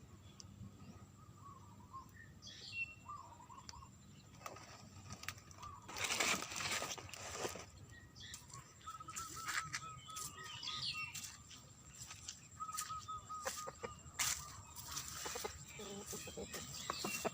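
Rustling and scattered clicks, with a louder rustle about six seconds in, over faint bird chirps and a thin warbling trill in the background.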